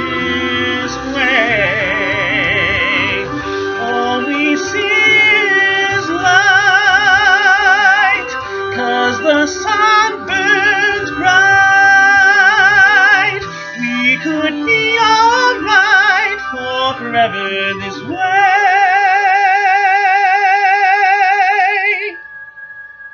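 A man singing a loud vocal run of long held notes with wide vibrato and quick melismatic turns, with no clear words, over a sustained instrumental backing. The voice breaks off about a second before the end, leaving the backing.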